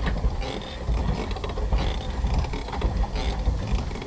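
Pedal boat's pedal crank and paddle-wheel drive clattering in a steady rhythm as it is pedalled, over a low rumble.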